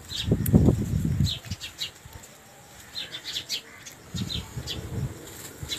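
Small birds chirping, many short high calls scattered throughout, over two low fluttering rushes: a loud one about a second long near the start and a weaker one about four seconds in.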